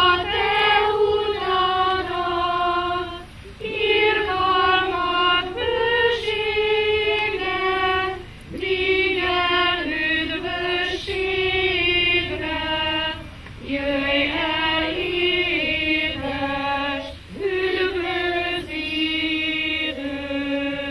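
A small group of children and adults singing a Hungarian Advent hymn, in short phrases with brief breaks between them every few seconds.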